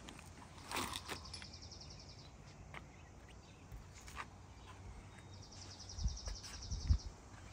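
A small bird's rapid high trill, heard twice and each about a second and a half long, over faint outdoor background. Scattered light clicks, and two dull low thumps near the end.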